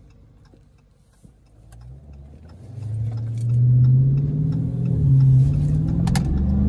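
Dodge Charger SRT's V8 engine heard from inside the cabin, rumbling quietly at low speed, then opening up as the car pulls away: loud, its pitch climbing, dipping once about five seconds in as the transmission shifts up, then climbing again.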